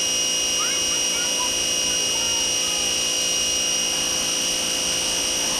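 Pressure washer running steadily, its motor giving a continuous high whine.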